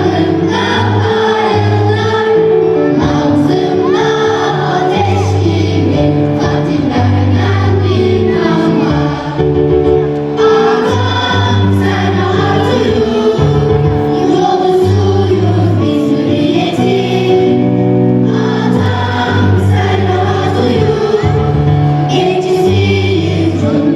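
A choir of middle and high school students singing with instrumental accompaniment, over steady bass notes that change every second or two.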